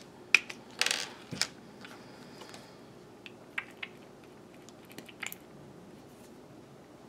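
Small sharp clicks and a short crinkly rustle from a small plastic serum bottle and its cap being handled and opened: a loud click about a third of a second in, a rustle around one second, then scattered lighter clicks.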